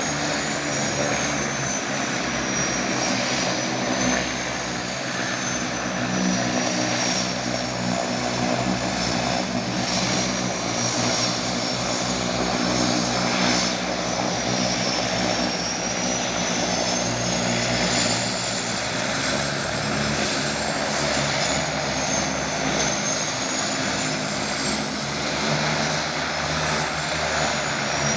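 The two turboprop engines of a de Havilland Canada DHC-6 Twin Otter floatplane run steadily at low power as it turns on the water. A high turbine whine drifts slowly up and down in pitch over the engine and propeller noise.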